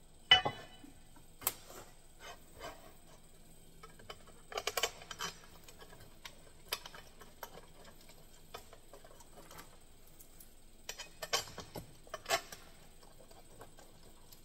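Scattered small metallic clicks and clinks as studs are handled and fitted by hand into the bolt holes of a plate on an 8-71 Roots blower. The sharpest clink comes just after the start, with further clusters of light taps about five seconds and twelve seconds in.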